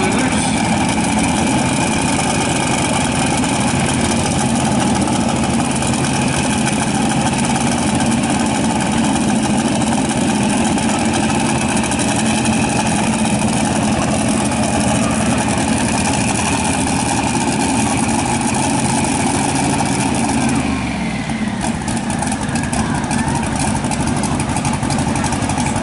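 Twin-turbocharged engine of a modified two-wheel-drive pulling truck idling loudly and steadily. About 21 seconds in, its pitch falls and the engine winds down, leaving a rougher background noise.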